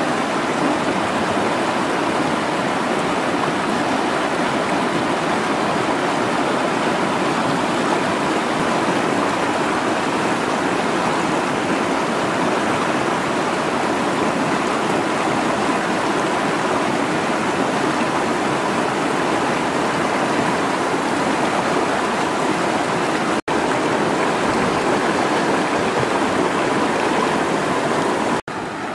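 River water rushing over rocks in a shallow rapid: a loud, steady, even rush, cut off for an instant twice, about 23 seconds in and near the end.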